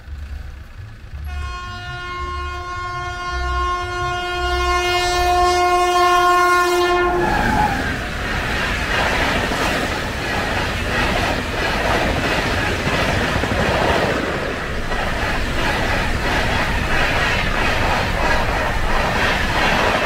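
Indian Railways locomotive air horn blown in one long blast of about six seconds, dropping in pitch as it cuts off when the engine passes the level crossing. The coaches then roll past close by, with steady rumbling and rhythmic wheel clatter over the rail joints.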